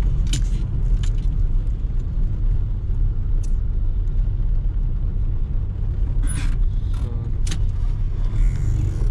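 Steady low engine and road rumble heard inside a moving taxi's cabin, with a few short, sharp clicks or rattles scattered through it.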